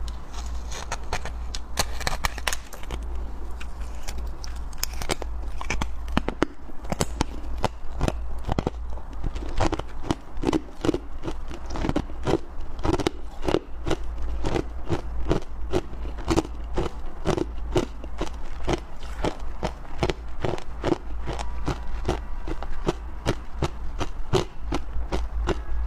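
Chewing mouthfuls of powdery freezer frost and soft ice, heard close up: a steady run of crisp crunches, one after another.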